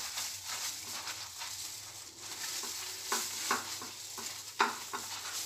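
Metal spoon rubbing and scraping jam across a flatbread on a plate: soft steady scraping with a few light clicks in the second half, the sharpest about four and a half seconds in.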